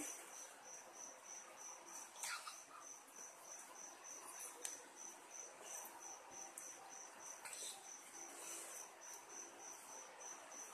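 Cricket chirping, a faint high-pitched chirp repeating evenly about three times a second, with a few soft clicks.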